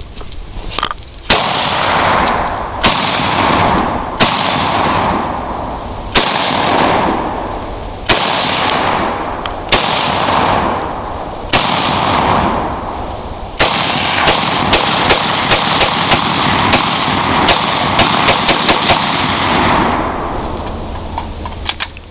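Ruger Mini-14 semi-automatic rifle firing: about eight single shots a second or two apart, each trailing off in a long echo, then a fast string of shots for about six seconds.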